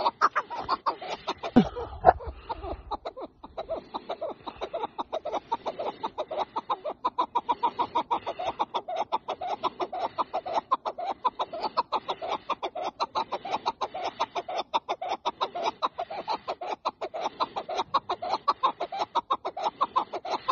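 Chukar partridge calling in a continuous rapid run of short clucking chuk notes. About two seconds in there is a brief low rumble.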